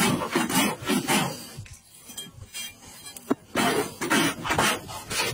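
Hoof rasp drawn back and forth across a horse's hoof, a run of rough scraping strokes. The strokes stop for about two seconds, broken by a single click, then start again.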